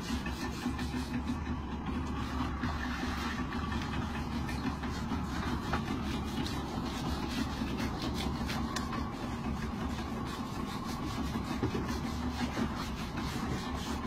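Small boat's engine idling steadily, with repeated scratchy strokes of a stiff brush scrubbing a sea turtle's barnacle-covered shell.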